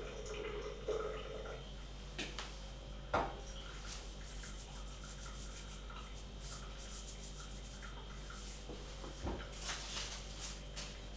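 Handheld spice shakers shaken over food: a run of quick, even shakes of dried oregano from about four to seven seconds in, and another burst of shaking near the end as salt goes on. A few light knocks come in between, the sharpest about three seconds in.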